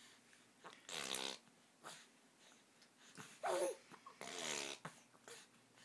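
Baby making three short breathy vocal sounds, coos and grunts, about a second in, at about three and a half seconds with a rise and fall in pitch, and again just after four seconds.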